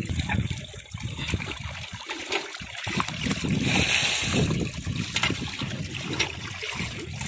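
Water trickling and splashing as it runs out of a bamboo fish trap into a woven basket, with small fish flapping in the shallow water. There is a louder burst of splashing about four seconds in.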